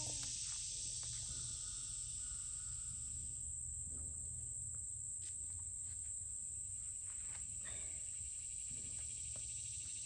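Crickets or similar insects chirring steadily in one continuous high-pitched drone, over a low steady rumble, with a few faint knocks.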